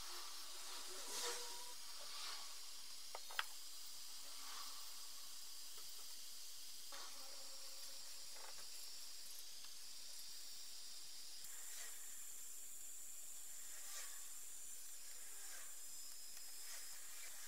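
A paintbrush stroking paint onto a cast-iron vice: soft, irregular swishes over a steady hiss, with one sharp click about three and a half seconds in.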